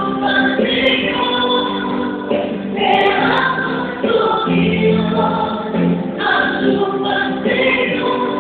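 Gospel song playing: a choir singing over a musical accompaniment. The treble is cut off, giving a dull, muffled sound.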